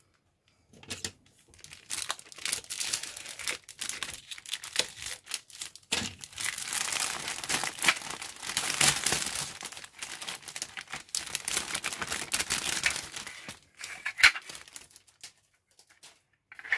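Clear plastic kit bag crinkling and rustling as long plastic model parts are worked out of it, with a few sharper clicks near the end.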